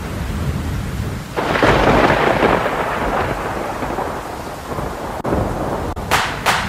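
Low rumble with a rushing swell of noise like thunder, rising about a second and a half in and easing off, then a few sharp hits near the end.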